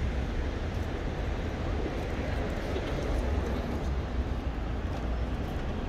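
Steady city street ambience dominated by a low rumble of road traffic.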